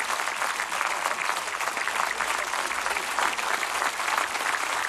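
Cinema audience applauding: many people clapping together in a dense, steady patter.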